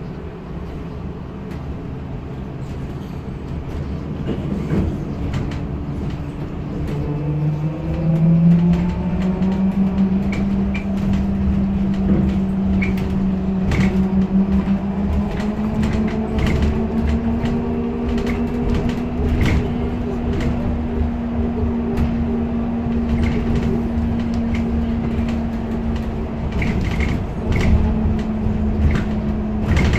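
Inside a trolleybus as it pulls away and picks up speed: the electric traction drive whines, its tone rising over several seconds and then holding steady. Short clicks and rattles sound over the constant running rumble.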